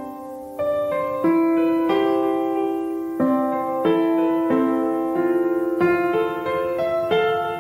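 Background piano music: a slow, gentle melody of notes and chords, each struck and left to fade.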